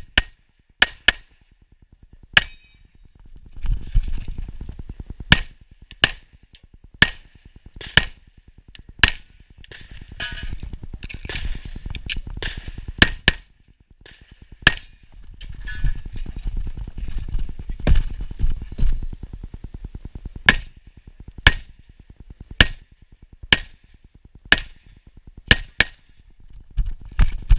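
STI Trojan .38 Super pistol fired in a string of single shots and quick pairs, often about a second apart, with pauses between groups during the stage.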